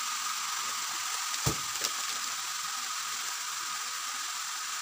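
Chopped bottle gourd frying in oil in a pan, a steady sizzling hiss. A sharp knock comes about one and a half seconds in, with a lighter one just after.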